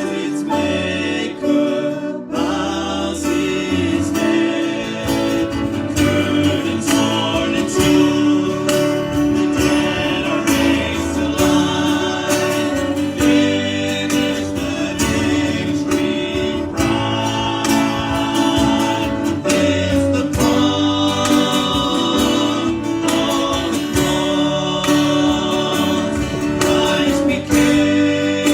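Worship song: voices singing with guitar accompaniment, held at a steady level throughout.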